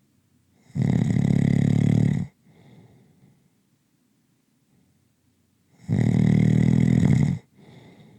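A person snoring slowly: two long, loud snores about five seconds apart, each lasting about a second and a half and followed by a softer, shorter breath.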